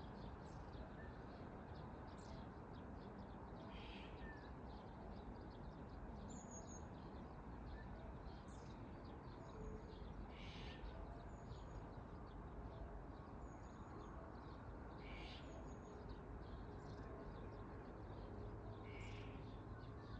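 Distant birds calling over a steady background hiss. A short harsh call comes about every four to five seconds, with faint high chirps in between.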